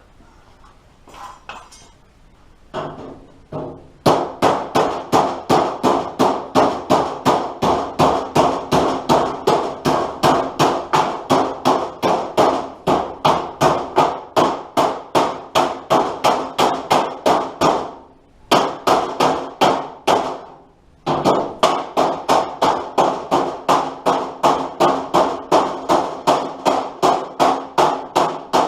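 Hammer beating the steel sheet-metal skin of a truck door, about three ringing blows a second. A short break a little past halfway, with one or two blows, then the steady hammering resumes.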